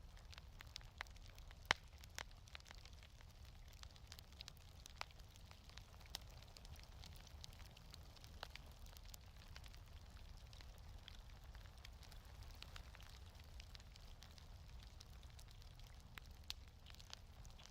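Wood fire in a fireplace crackling: scattered sharp pops and snaps over a faint low rumble, with one louder pop near the start.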